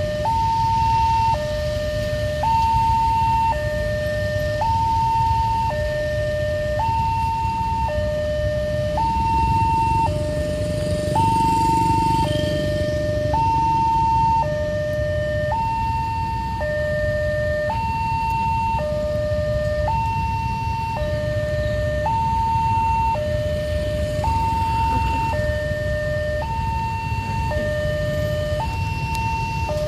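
Railway level-crossing warning alarm sounding, an electronic two-tone alternating high and low about once a second, warning of an approaching train. Under it runs the rumble of motorcycles waiting at the crossing.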